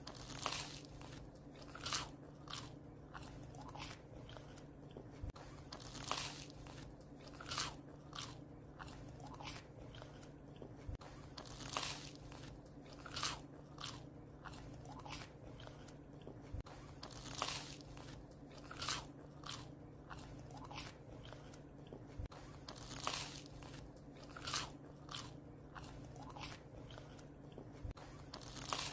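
A puppy chewing bread, with crisp crunches coming irregularly about once or twice a second.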